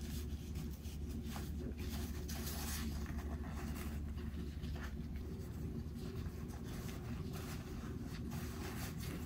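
Soft, scratchy rustling of a tissue being rubbed over a small kitten as it is handled, over a steady low hum.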